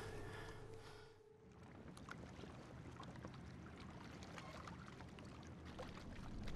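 Faint lapping of lake water with small splashes and light ticks, after a brief silent break about a second in.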